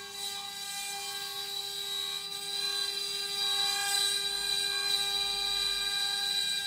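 CNC wood-carving machine running, its spindle giving a steady high whine over cutting noise; it grows a little louder about three seconds in.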